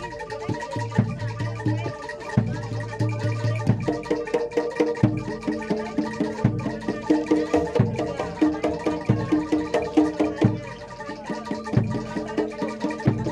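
Live Javanese gamelan music for a kuda lumping dance: struck metallophones ringing out a fast, busy pattern of repeated notes over low drum strokes.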